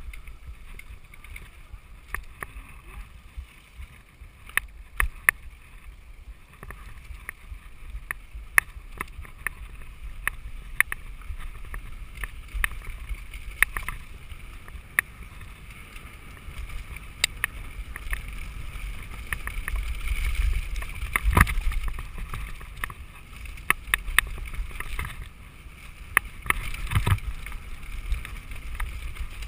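Mountain bike descending a dusty dirt singletrack: tyres rolling over loose dirt and stones, with frequent sharp clicks and knocks from the bike rattling over bumps and a low wind rumble on the microphone. It gets louder and rougher about two-thirds of the way through and again near the end.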